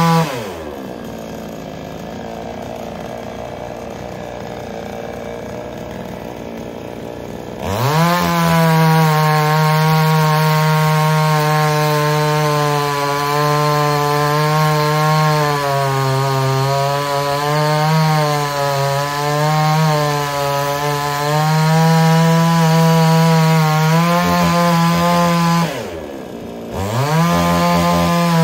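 Gas chainsaw bucking logs. It drops to idle about half a second in, revs back up near eight seconds and runs at full throttle with its pitch sagging and wavering as the chain cuts through the wood. It eases off briefly about two seconds before the end, then revs up again.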